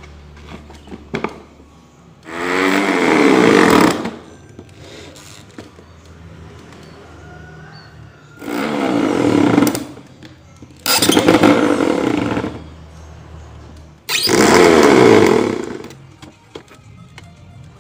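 Corded electric drill boring into a wooden board, run in four short bursts of about one and a half to two seconds each, the motor rising in pitch as it spins up at the start of most bursts.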